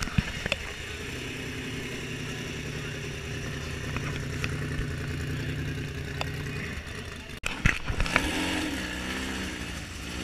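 Off-road race truck engine running at a steady idle, then after a break an engine revving with its pitch rising and falling, over steady crowd chatter. A few sharp knocks come about eight seconds in.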